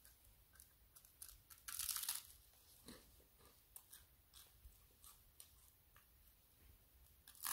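Faint, crisp crackles and clicks with one louder crunch about two seconds in, from bread toasting crisp on a small charcoal grill.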